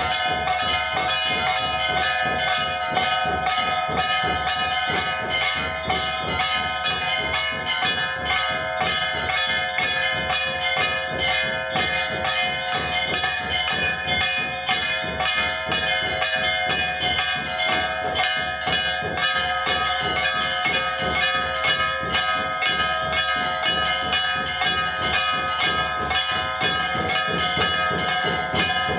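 Temple bells struck rapidly and without pause, their many overlapping ringing tones sustained as during an aarti.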